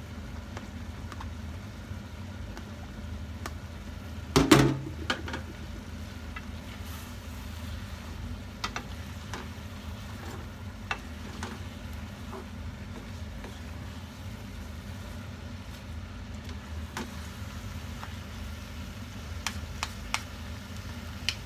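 Wooden spoon and fork tossing stir-fried noodles and vegetables in a frying pan, with light clicks and scrapes against the pan over a steady low hum. A louder clatter comes about four seconds in.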